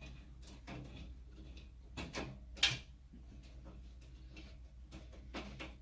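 Scattered small metal clicks and scrapes as an M6 screw is worked into a steel rack crossbar, with one sharper click between two and three seconds in.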